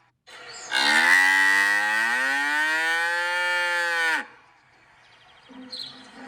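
A cow mooing: one long moo of about three and a half seconds, rising a little in pitch and dropping away at the end.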